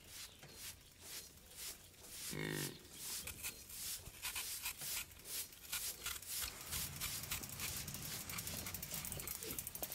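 One short moo from cattle, about two and a half seconds in. Then a hand broom scratches over a dirt yard in quick, repeated strokes.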